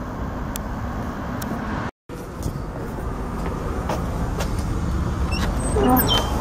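Steady rumble of street traffic, broken by a brief dropout about two seconds in. Near the end a few clicks and a short squeak as a door's knob is turned and the door is opened.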